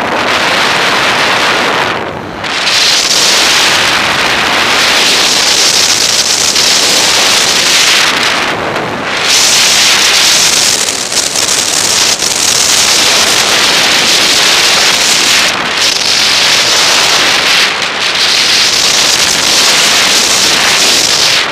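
Wind rushing over an action camera's microphone and skis hissing and scraping on packed snow during a downhill ski run, dipping briefly a few times.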